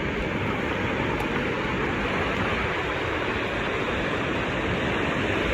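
Ocean surf breaking and washing onto the beach: a steady rush of noise.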